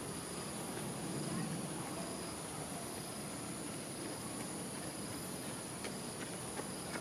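Steady high-pitched insect chorus, with a fainter chirp repeating about once a second, over a low background murmur; a few faint clicks near the end.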